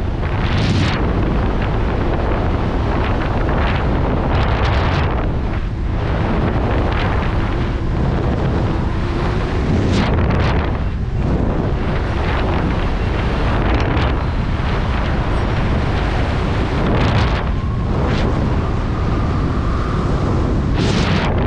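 Loud, steady rush of freefall wind across a body-worn camera's microphone, pulsing irregularly with gusts.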